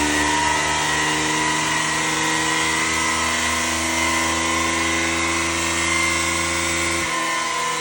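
Honda Tornado XR single-cylinder motorcycle engine held at high revs, its pitch creeping slowly upward, with heavy wind rush over it, as on a flat-out top-speed run. About seven seconds in, the deepest part of the engine note drops away.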